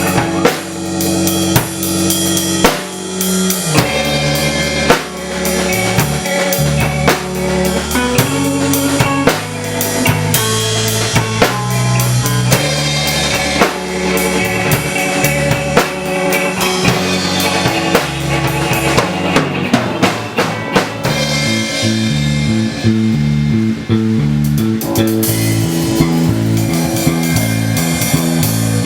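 Music with a drum kit beat: kick, snare and rimshot hits over bass and other instruments, the arrangement thinning out about two-thirds of the way through.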